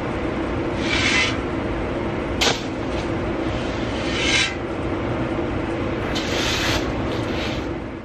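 Flat shovel scraping across gravel and spilled soybeans, scooping them up and tipping them into a container, with three rasping strokes about one, four and six seconds in and a sharp knock of the blade about two and a half seconds in. A steady low machine hum runs underneath.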